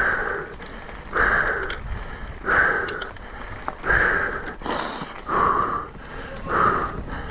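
Mountain biker's heavy breathing from hard effort: six hard, evenly spaced breaths, one about every second and a third.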